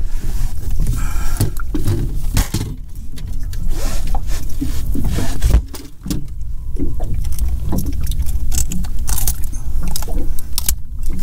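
Hook-remover pliers and a metal jig clinking and scraping while a lake trout is unhooked in a landing net on the boat deck: scattered clicks and knocks over a steady low rumble.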